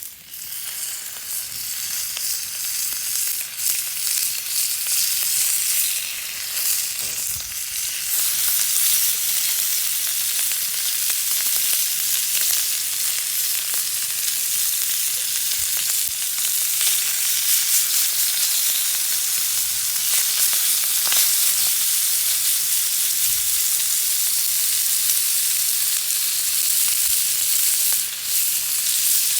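Food frying in a hot pan: a steady, dense sizzle that starts abruptly, with a few faint clicks.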